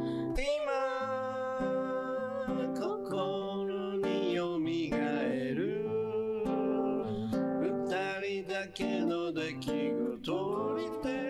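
A man singing a slow song over acoustic guitar accompaniment, his voice holding long, wavering notes.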